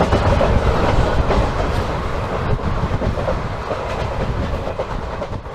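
Passenger train running on the rails: steady wheel and track noise with scattered knocks. It grows steadily quieter in the second half.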